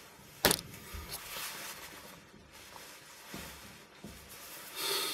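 Quiet room tone with a faint hiss, broken by a single sharp click about half a second in and a few fainter ticks.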